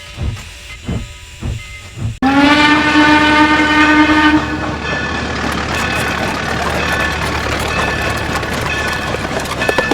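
Steam locomotive chuffing at about two beats a second, cut off suddenly about two seconds in by a loud steam whistle that slides up slightly and holds for about two seconds, followed by the steady rumble of the train running.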